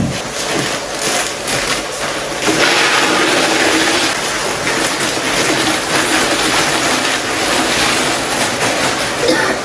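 Dry food being poured from a plastic packet into a tall plastic storage container: a steady hiss of falling grains, louder from about two and a half seconds in.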